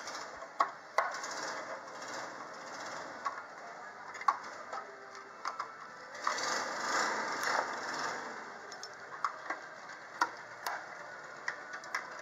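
Screwdriver scraping and prying at rusted sheet steel in a classic Mini's bulkhead box section as the rusty metal is levered out, with scattered sharp clicks and ticks of metal on metal. The scraping thickens for a couple of seconds about six seconds in.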